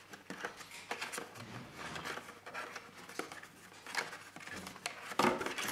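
Plastic packaging tray being handled as a headset is freed from its retaining clips: scattered faint clicks, taps and rustles of plastic, louder near the end.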